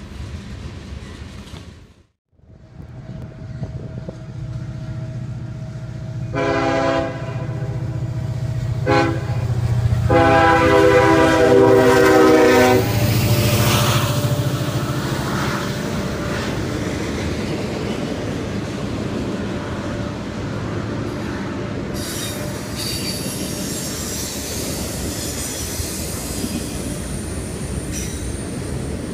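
Passing freight cars rumbling, cut off abruptly about two seconds in. Then the horn of Union Pacific 1983, an EMD SD70ACe, sounds a long blast, a short one and a longer one, loudest as the locomotive nears. The diesel passes, followed by the steady rumble and clatter of double-stack container cars with intermittent wheel squeal.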